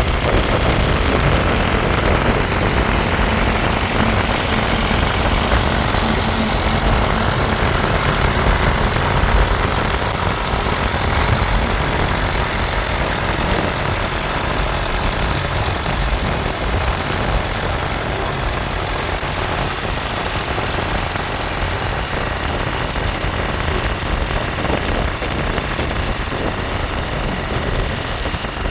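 Diesel engine of a JCB 3DX backhoe loader running steadily at work, a dense low rumble that eases slightly partway through.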